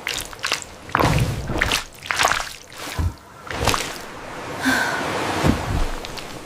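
AI-generated ASMR food sounds: an irregular run of sharp, wet clicks and squishes, about a dozen strokes over several seconds.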